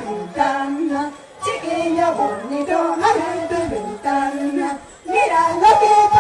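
Live band music with a woman singing a melody in long phrases, with short breaks about a second in and near five seconds.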